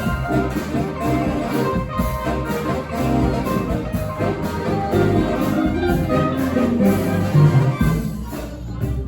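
Live brass street band playing a bluesy tune, horns over a steady beat. The band thins out briefly near the end.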